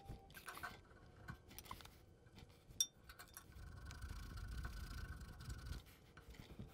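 Faint handling clinks of metal parts, with one sharp metallic clink about three seconds in, followed by a few seconds of steady rubbing as a shop towel wipes out the Ford Model A front spindle and axle eye where the new kingpin is too tight to go through.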